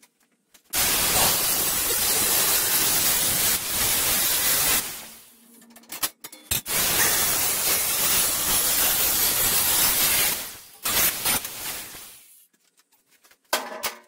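Angle grinder with a cut-off disc cutting through 16-gauge stainless steel sheet, in two runs of about four seconds each, each fading out as the grinder spins down. A few short clatters follow near the end.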